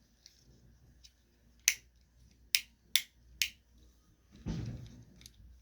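Clicky buttons on a fidget toy pressed four times, giving four sharp clicks over about two seconds, then a softer low thump.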